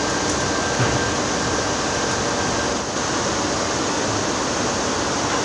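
Stick welding on a worn vibrating-screen shaft, laying on build-up weld: the arc crackles and hisses over a steady machinery rush, and it stops about three seconds in.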